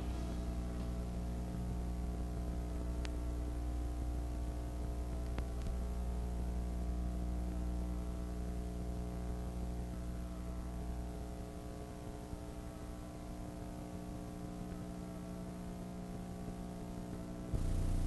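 Steady electrical mains hum with a stack of buzzing overtones and a light hiss, with two faint ticks in the first third. The deepest part of the hum drops away about two-thirds through, and a louder noise cuts in just before the end.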